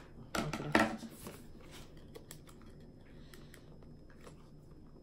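Scissors cutting into plastic packaging: a short burst of snipping and crinkling about half a second in, then a few faint clicks of handling.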